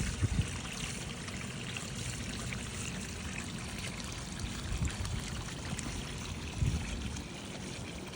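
Water from a small pump-fed Tetra Pond Waterfall spillway pouring and trickling steadily into a backyard pond, with a few brief low rumbles.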